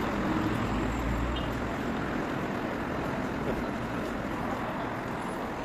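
Steady outdoor traffic noise, with a low rumble easing off about two seconds in.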